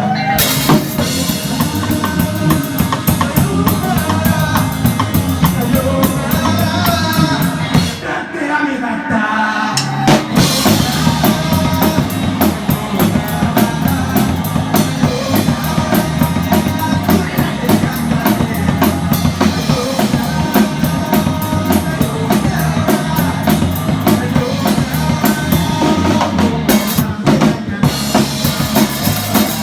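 Rock band playing, with the drum kit loud and close: kick drum and fast, regular cymbal hits over guitar. The sound thins out briefly about eight seconds in, then the full band comes back in.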